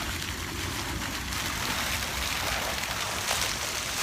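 Wind buffeting the microphone in a low, fluctuating rumble, with a steady hiss of wind-blown noise on top that grows a little over a second in.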